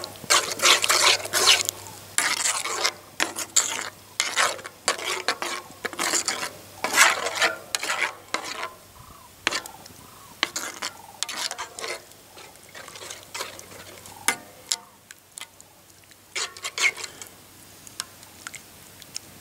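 A spoon stirring and scraping gravy in a skillet: a quick run of scrapes for the first half, thinning to occasional strokes later, with a brief flurry near the end.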